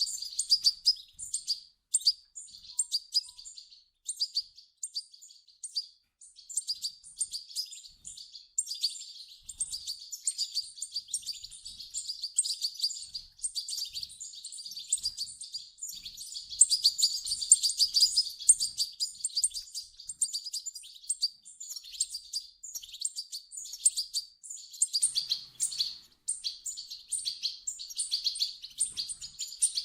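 European goldfinch chicks calling: a dense stream of rapid, high chirps.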